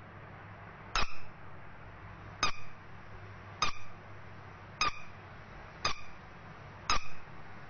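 Yellow rubber duck squeeze toy squeaked by hand six times, about once every second or so. Each squeak is short and sharp, followed at once by a softer one.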